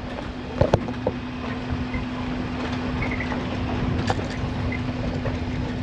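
Suzuki Jimny driving over a rough off-road track, heard from inside the cab: the engine runs at a steady note under a rumbling noise. A couple of sharp knocks come about half a second in, and another near four seconds in.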